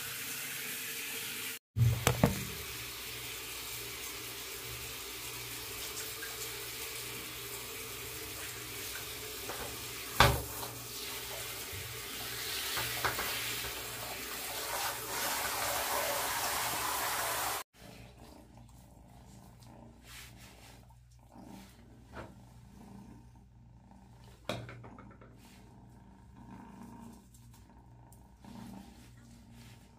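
Hand-held shower head spraying water over a kitten in a plastic basin: a steady hiss of running water that cuts off suddenly a little past halfway. After that come scattered small wet sounds as the kitten's coat is handled.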